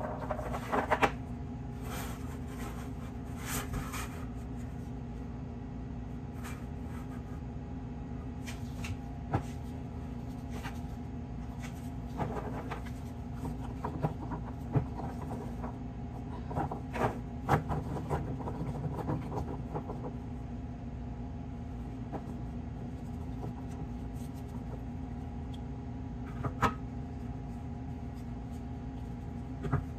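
A steady mechanical hum with several fixed pitches, with scattered light knocks and taps as ladyfinger biscuits are handled and set down in a stainless steel pan and a plastic tub of coffee. The louder taps come about 9, 15, 17 to 18 and 27 seconds in.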